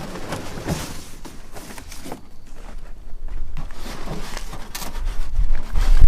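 Packaging and body-kit panels being handled: uneven rustling with several sharp knocks and clicks. A low rumble builds near the end.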